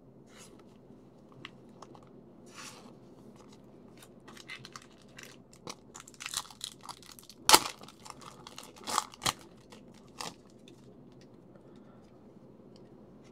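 Foil wrapper of a trading-card pack being torn open by hand: a run of crinkles and rips, with one sharp, loudest rip about halfway through and two more soon after, then only faint handling.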